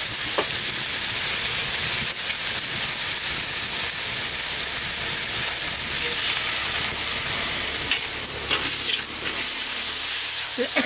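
Chopped lemongrass, shallots, galangal and herbs sizzling steadily in hot oil in a wok, with sauces just poured in. A spatula stirs and scrapes through them near the end.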